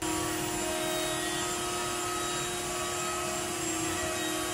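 Router in a router table running steadily with a high whine at one constant pitch while a roundover bit rounds over the edge of a wooden fence piece, over a steady rushing hiss of dust extraction.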